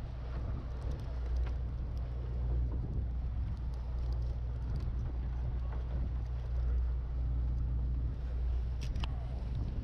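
Boat engine running with a steady low drone, a few faint clicks over it, one a little stronger near the end.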